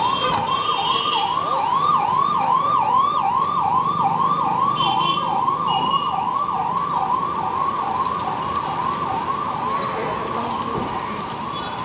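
Police vehicle's electronic siren on a fast yelp, its pitch sweeping up and down about two and a half times a second. It starts abruptly and grows slightly fainter toward the end.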